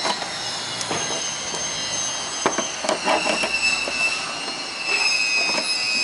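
Pliers gripping and twisting a metal RCA jack on a TV's rear panel. The metal scrapes in a high squeal, with a few sharp clicks as the jaws slip and catch.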